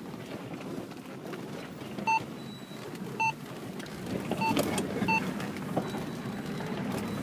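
Car cabin noise while driving a rough dirt track: a steady rumble of tyres and engine that grows rougher about halfway through. Four short electronic beeps sound at uneven intervals between about two and five seconds in, and the first two are the loudest sounds.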